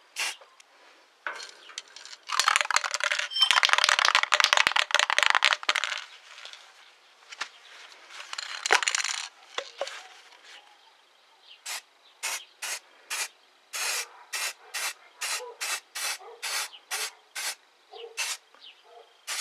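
Aerosol spray paint can hissing as paint is sprayed: two longer sprays, then a quick series of short bursts, about two a second.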